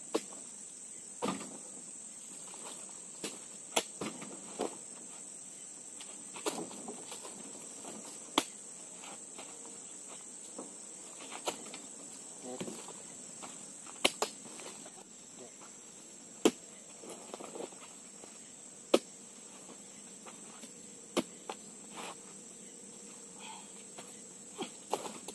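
Oil palm fruit bunches being speared and heaved up into a pickup's rack-sided bed, each landing with a sharp knock, irregularly every one to three seconds. A steady high-pitched insect drone runs underneath.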